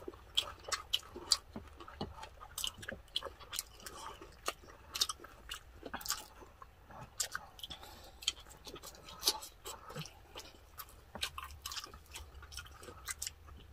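Two people chewing pork knuckle and rice close to the microphone: a run of irregular wet mouth clicks, smacks and small crunches.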